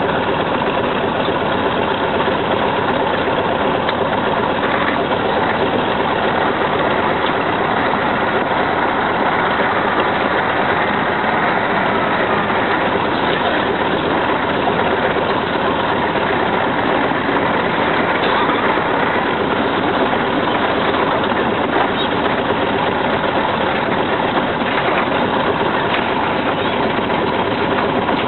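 Heavy truck engine running steadily under load as a Ural six-wheel truck hauls its trailer through deep mud.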